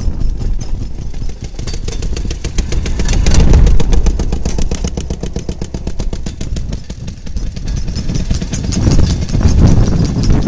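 Railroad motorcars (track speeders) running past on the rails, their small engines popping in a rapid, even beat. It swells loudest twice, about three and a half and nine and a half seconds in, as the cars go by.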